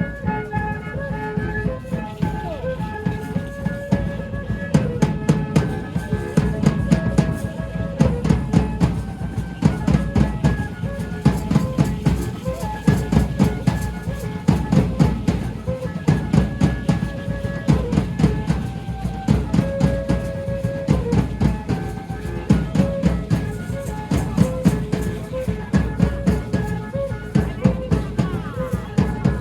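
Danza music: a violin plays a repeating melody of held notes over a fast, steady drum beat.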